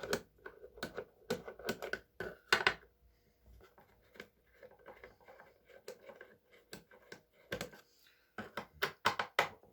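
A screwdriver working the screws out of a chainsaw's top cover: irregular small clicks and knocks of the bit and screws, with light scraping between them.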